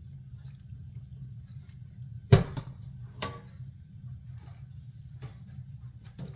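Two sharp knocks about a second apart, the first much the loudest, and a fainter one later, over a steady low hum.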